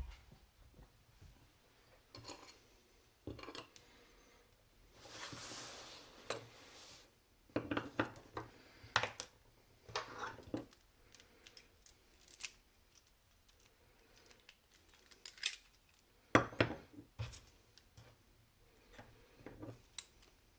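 Small metal clicks, clinks and taps of a padlock and hand tools being handled and set down, as the lock is taken apart. About five seconds in comes a longer scraping, rubbing sound.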